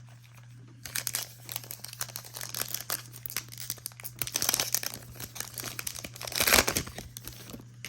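Plastic trading-card pack wrapper crinkling and tearing as it is ripped open, a run of irregular crackles that peaks near the end.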